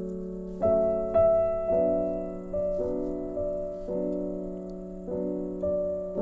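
Slow, soft background piano music, notes and chords struck about once a second and left to ring and fade.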